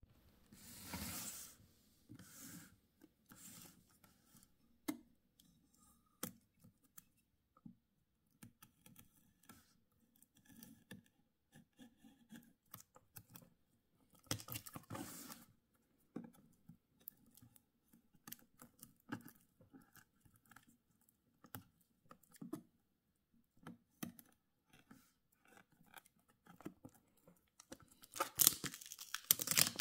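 A knife blade scraping and slitting the plastic wrap on a box, with scattered small clicks and scratches and the crinkle of the film being handled. Louder scraping and tearing bursts come about a second in, around halfway, and again near the end.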